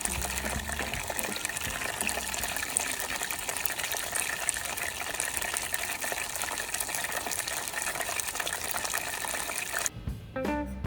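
Battered squid deep-frying in hot oil: a steady, dense sizzle. Near the end the sizzle cuts off and acoustic guitar music starts.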